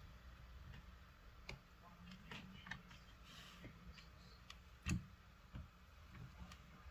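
Faint, scattered clicks and taps of small repair tools against a phone's parts, the loudest a single knock about five seconds in.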